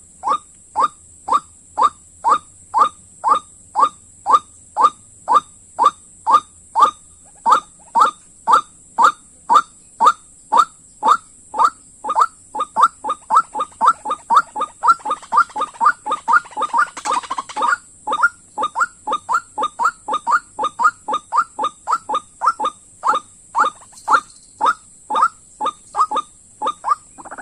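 White-breasted waterhen (dahuk) calling: a long series of short, repeated notes about two a second, quickening and overlapping for several seconds in the middle.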